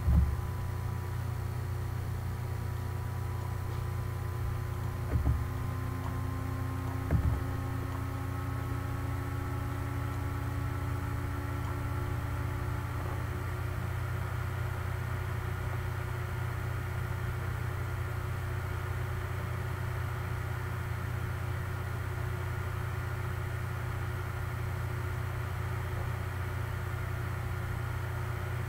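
Steady low machine hum with faint tones slowly rising in pitch, and brief low thumps about 5 and 7 seconds in.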